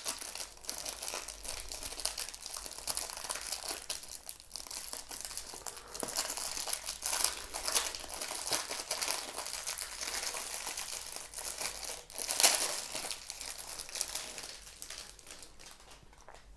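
Plastic packaging around a remote control crinkling and crackling as it is handled and opened, irregular throughout, with a louder crackle about twelve seconds in.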